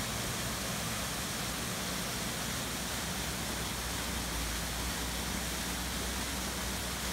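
Small waterfall pouring onto rocks and a shallow stream running over stones: a steady, unbroken rush of water.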